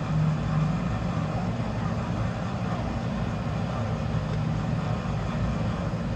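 Electric melon-juicing mixer running steadily, its motor-driven whisk churning the flesh inside a halved netted melon into juice, with a low, even hum.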